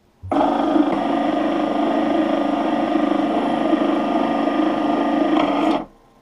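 Homemade electric sheet-metal rolling machine running under power, its motor, spur gears and roller-chain drive making a steady whir while a thin stainless-steel strip is rolled into a ring. It starts a moment in and stops suddenly shortly before the end.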